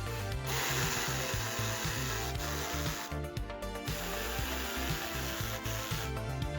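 Background music with a steady beat, with a power tool hissing twice over it, a few seconds each time, during motor-head assembly.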